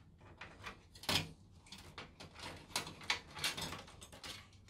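Rustling and light knocks of bundled power-supply cables being handled and pulled through the routing holes of a PC case, with a louder bump about a second in.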